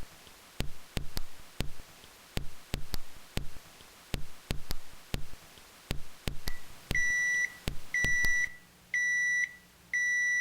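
A run of sharp clicks or taps in an uneven rhythm, then an electronic kitchen-appliance beeper sounding four times, about one beep a second, each a steady high tone of about half a second.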